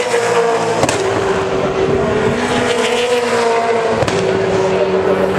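V8 Supercar race cars' V8 engines running at high revs past the fence, a loud steady drone whose pitch jumps abruptly about a second in and again near four seconds.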